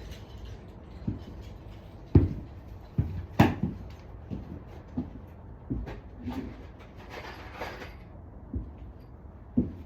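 Irregular knocks and clicks, about a dozen spread unevenly, with a brief rustling noise about two-thirds of the way through.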